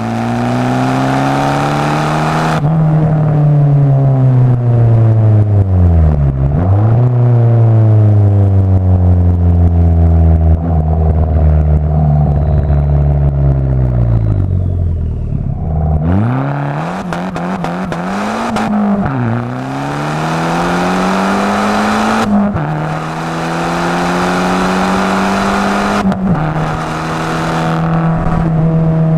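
Abarth 500 esseesse's turbocharged four-cylinder, fitted with a Garrett 1446 turbo and an aftermarket exhaust, being driven hard. The revs climb and fall again and again, dropping off once almost to idle before pulling up sharply. Late on, the pitch steps down twice at the gear changes.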